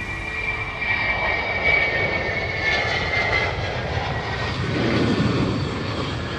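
Jet aircraft engine noise: a dense rushing sound with a high whine that slowly falls in pitch, growing louder about a second in.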